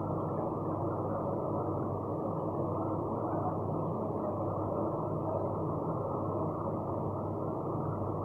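Steady low rushing noise with a faint hum, unchanging throughout.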